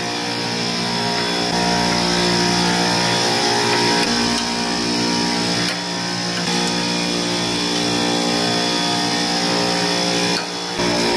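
Supermarket refrigeration compressor rack running with a steady, loud mechanical hum.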